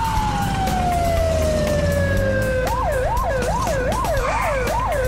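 Police car siren: a slow falling wail for the first two and a half seconds, then switching to a fast yelp of quick rising-and-falling sweeps, about two a second.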